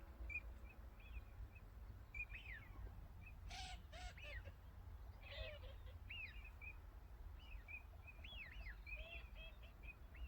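Several birds calling by the water: a steady scatter of short high chirps and quick downward-sweeping notes, with a couple of harsher, rasping calls around four and five and a half seconds in, over a steady low rumble of ambient noise.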